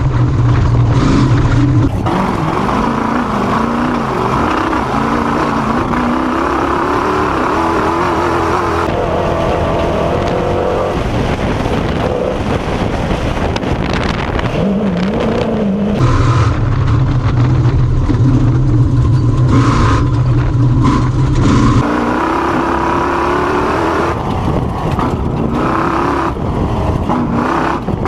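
Off-road race vehicle's engine running hard, its pitch rising and falling as it is revved up and down at speed. A steady low drone runs through some stretches, and the sound changes abruptly several times.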